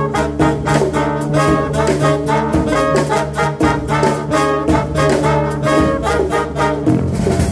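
Live Afrobeat-jazz big band, its saxophone and brass section playing a riff of short, rhythmic stabs over bass and drums. The horns drop out near the end, leaving the bass line.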